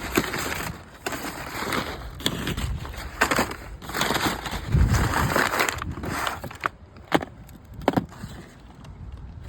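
A package being opened by hand: packaging rustling and crinkling unevenly, with a few sharp clicks and knocks.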